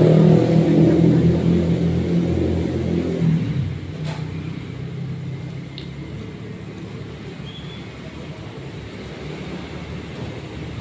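A motor vehicle's engine running close by, loud at first and dropping away after about three and a half seconds, leaving a steady low traffic hum.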